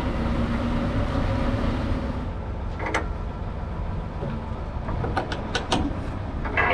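Semi truck's diesel engine idling steadily, with a few sharp clicks and clanks from handling the air lines and electrical cord being coupled to the trailer, several close together about five seconds in.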